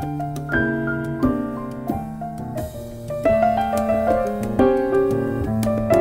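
Background music led by piano: a run of notes and chords at a lively, even pace.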